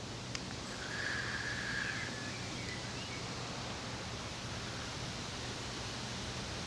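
Outdoor countryside ambience: a steady hiss of wind and rustling, with a faint high bird-like call about a second in and a few small chirps shortly after.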